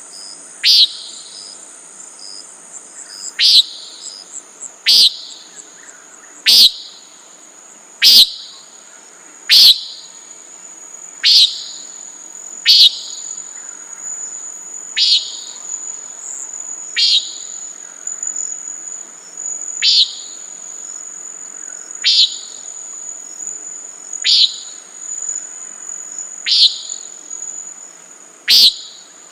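Common nighthawk calling over and over: short, nasal 'peent' calls, about fifteen of them, one every couple of seconds. Insects trill steadily and thinly high in the background.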